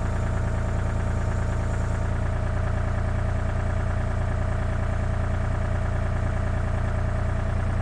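Excavator engine running steadily with a deep, even hum while the hydraulic thumb is slowly closed against the bucket.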